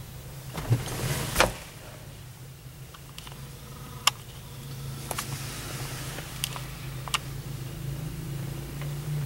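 A steady low hum with a handful of short, sharp clicks and knocks spread through it. The loudest pair comes about a second in.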